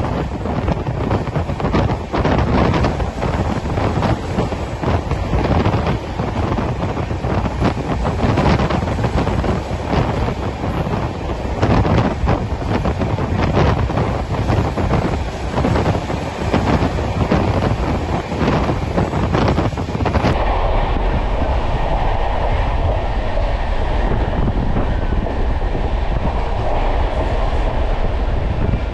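Express train coach running at speed: steady rail rumble with rapid wheel clatter and wind buffeting the microphone. About twenty seconds in the sound changes abruptly to a steadier, duller rush of rumble and wind.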